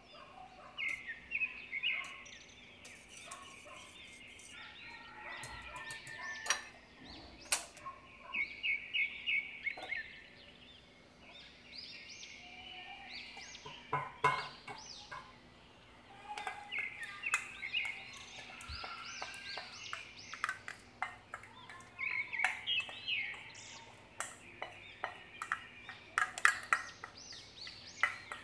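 Birds calling in quick repeated chirps and trills, with occasional sharp clinks and knocks.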